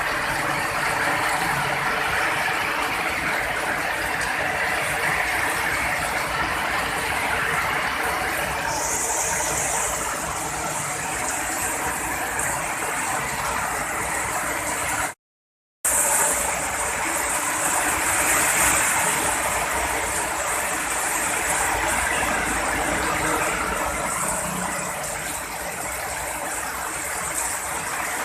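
Heavy rain falling steadily, with a hiss across all pitches. About halfway through the sound cuts out completely for under a second, then resumes.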